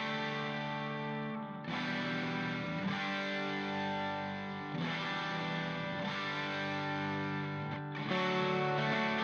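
Background music: sustained chords that change every few seconds.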